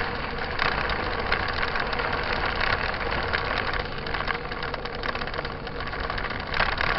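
Mountain bike rolling over a dirt trail: a steady rumble of tyres and wind with constant fine rattling and clicking from the bike.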